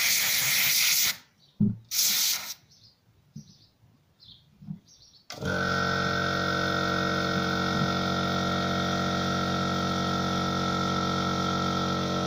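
Two blasts of compressed air hissing from an air blow gun, one in the first second and a shorter one about two seconds in. About five seconds in, the Stanley Fatmax 50-litre compressor's 1500 W motor and pump cut in suddenly and run steadily with a whine, just after their oil change.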